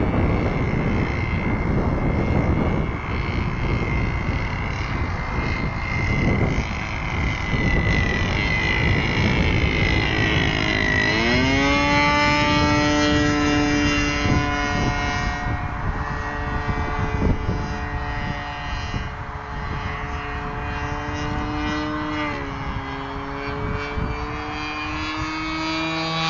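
A radio-controlled P-47D Thunderbolt model flying overhead on its MVVS 26cc petrol engine. The first half is a noisy run with a high whine. About eleven seconds in, the engine note sweeps up into a clear, steady tone, which dips slightly near the end.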